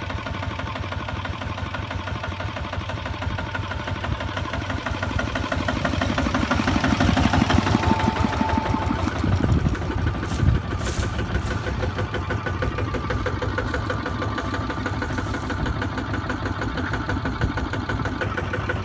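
Single-cylinder diesel engine of a Kubota two-wheel walking tractor idling with a fast, even chugging. It grows louder for a few seconds in the middle, and there is a single sharp knock about ten and a half seconds in.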